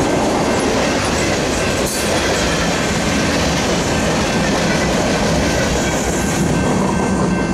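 Last cars of a freight train rolling past: a steady rumble and clatter of steel wheels on the rails, with a faint high-pitched wheel squeal.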